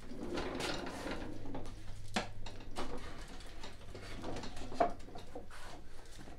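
Handling noises from a Snapper riding mower's steel front frame being turned over: rubbing and light knocks with a few sharp clicks, over a low steady hum.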